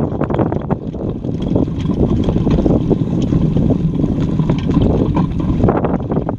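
Loud, gusting wind buffeting the microphone aboard a Bauer 10 sailing dinghy under way, with water rushing along the hull.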